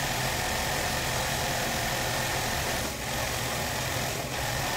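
Industrial overlock machine (serger) running steadily as fabric is fed through it, overlocking the fabric edge with a continuous even whir.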